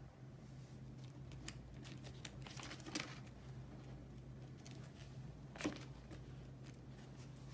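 Clear plastic photocard sleeve pages in a ring binder crinkling and rustling as the pages are handled and turned, with sharper crackles about three seconds in and again near six seconds.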